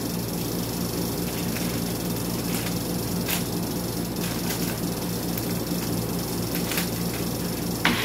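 Steady low electrical hum over a rushing noise, with a few faint light clicks.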